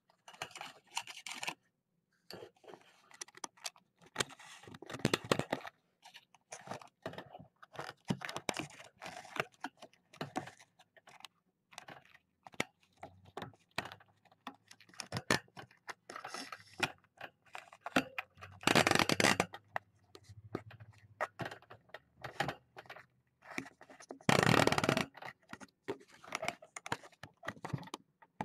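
Kittens brushing and pawing against a webcam right at its microphone: irregular rustling, scraping and clicking of fur and paws on the camera, with two longer, louder rubbing bursts, one a little past the middle and one near the end.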